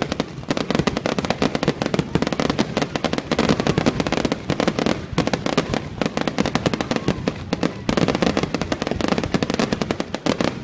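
Fireworks display going off in a dense, continuous barrage of sharp bangs and crackles, many per second.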